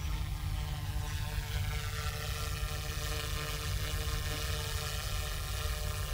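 Flywing FW200 V2 electric RC helicopter's rotors and motor whirring with a steady buzz of several tones as it lifts off the grass and climbs into a hover. A low wind rumble on the microphone runs underneath.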